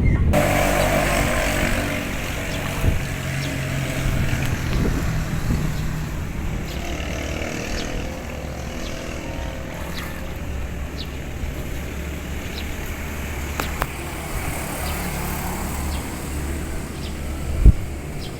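A small engine running steadily, its note shifting slightly, with wind noise over the microphone and a sharp knock near the end.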